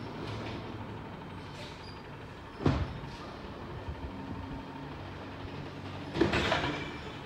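Garbage truck's engine running steadily, with two loud clanks: a sharp bang a little over a third of the way in and a longer clatter near the end.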